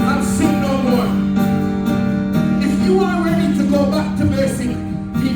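Worship music: a singing voice over steady, held instrumental chords.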